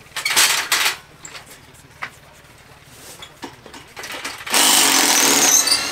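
Handheld power tool run in two bursts, a short one near the start and a longer steady one of over a second about four and a half seconds in, undoing the bolts that hold a wooden cross beam to its upright.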